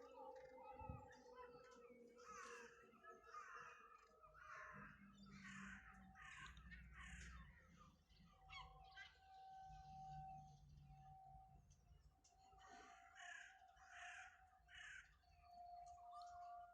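A bird calling in two runs of short, harsh calls, about eight in the first run and five later on. Under the first few seconds, the faint tone of the Federal Signal 2001 warning siren falls as it winds down.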